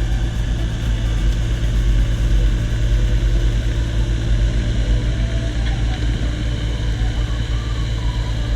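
Cat 304 mini excavator's diesel engine running steadily, a low continuous drone with a fluttering beat.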